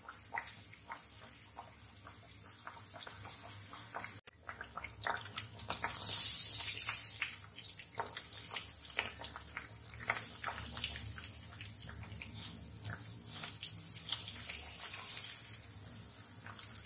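Jaggery-dough tikkiyan deep-frying in hot oil in a wok: steady sizzling with many small crackles and pops, growing louder about four seconds in.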